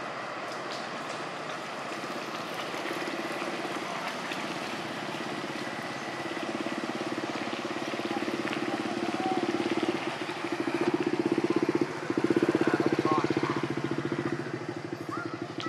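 A small engine running, growing louder through the middle and easing off near the end, with a few faint high chirps near the end.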